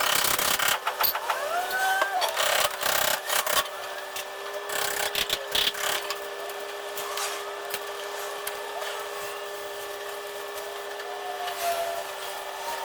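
Hand-tool work on a car's body panels: irregular knocks, scraping and rubbing, busiest in the first few seconds, with a few short squeaks over a steady hum.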